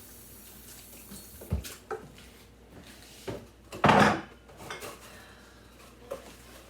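Dishes and food containers knocking and clattering as they are handled one after another, with a louder, longer clatter about four seconds in.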